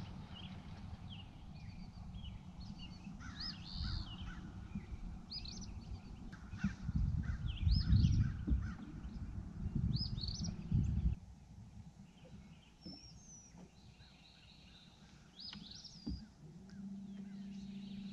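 Wild birds chirping and calling in short repeated notes, over a low rumbling noise that cuts off abruptly about two-thirds of the way through. A steady low hum comes in near the end.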